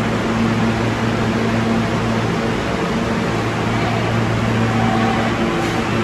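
Steady hum of a standing New York City subway train, its air conditioning and onboard equipment running, with a low electrical drone under an even hiss. A faint higher tone joins near the end.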